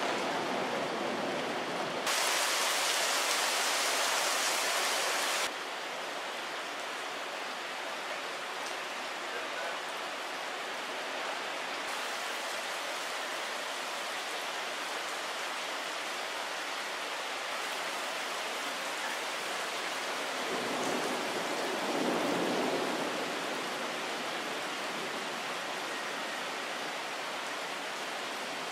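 Steady rain falling during a thunderstorm. The low rumble of thunder fades away over the first couple of seconds. A few seconds of louder hiss cut off suddenly, and a low rumble swells briefly about two-thirds of the way through.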